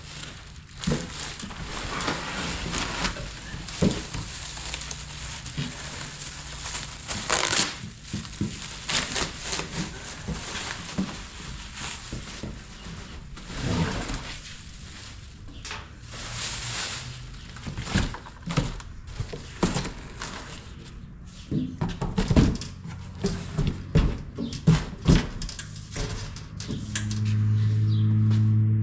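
Workshop teardown noise: irregular metal knocks, clanks and scraping from tools working on the truck's rear parts. A steady hum with a low pitch comes in near the end.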